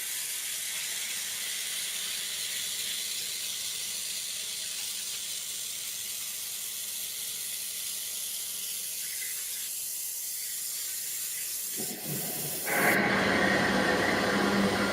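CNC water jet cutter's high-pressure stream hissing steadily as it cuts through granite. About three-quarters of the way in, after a brief dip, a louder, harsher rushing sound with a steady low hum takes over.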